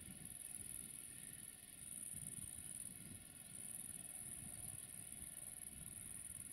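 Insects chirring in a steady high-pitched band that swells and eases every second or two, over a faint low rumble.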